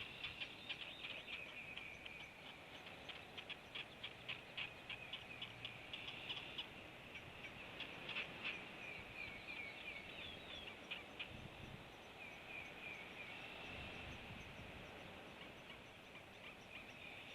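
Bird chirping: rapid short, high calls, several a second, in runs that fade and return, over faint background hiss.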